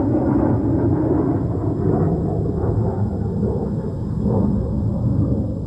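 Fighter jets passing overhead: a loud, steady low rumble whose higher part thins out about one and a half seconds in.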